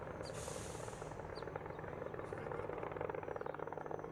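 Helicopter rotor and engine noise, a steady fast chopping.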